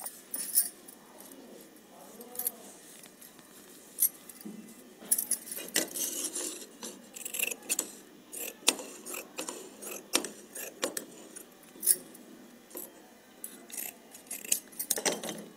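Scissors snipping through cotton shirt cloth, with bangles clinking on the wrists of the hands doing the cutting: irregular sharp clicks and jingles, with soft rustles of the cloth being handled.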